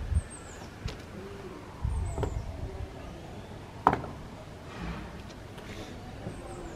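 A stone set down on top of a small stone stack, one sharp knock of stone on stone about four seconds in, with shuffling footsteps on tarmac around it. Faint bird calls in the background.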